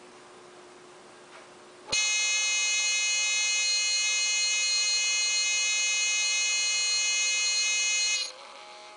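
littleBits buzzer module on a wireless doorbell receiver buzzing: a steady, unchanging electronic buzz that starts suddenly about two seconds in, holds for about six seconds and cuts off near the end. It was set off remotely by the wireless transmitter from the other end of the house, so the buzz shows the signal got through.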